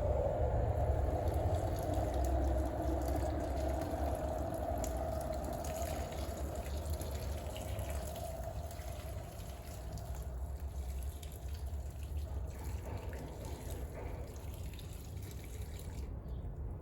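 Water running steadily, getting gradually quieter over the first half.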